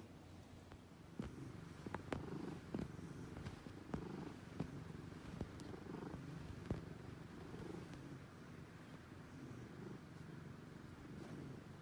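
Ginger tabby cat purring, a low rumble that rises and falls with its breathing every second or so, from a cat with feline asthma whose wheezing has much improved. Several sharp clicks sound over the first seven seconds.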